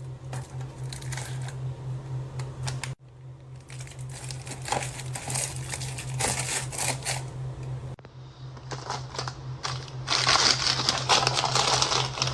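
Crinkly plastic snack bags rustling and crackling as they are handled and packed into a plastic organizer. The rustling breaks off suddenly twice and is loudest and densest near the end.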